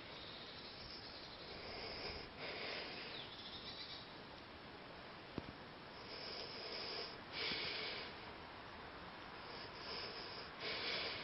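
Soft breathy puffs, four or five of them, each under a second, over a faint steady hiss, with one small click about halfway through.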